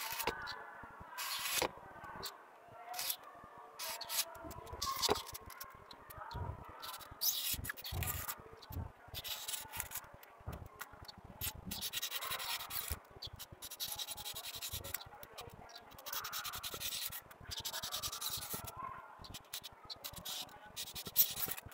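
Kitchen knife sawing and carving through a block of styrofoam, in irregular rubbing, scraping strokes.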